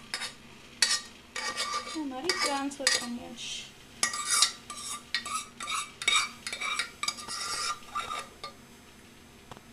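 A metal ladle scraping and clinking against metal cookware in irregular short strokes, some with a brief ring, as cooked chicken is poured and scooped from one pot into another pan. The strokes thin out near the end.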